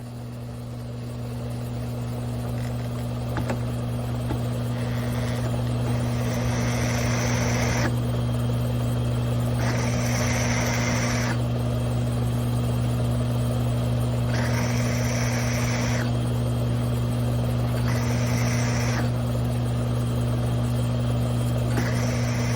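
Grizzly G1007 mill-drill switched on and running with a steady hum that builds over the first few seconds. A drill bit cuts into a metal plate in repeated feeds, each adding a higher cutting noise for a second or two, about every four seconds.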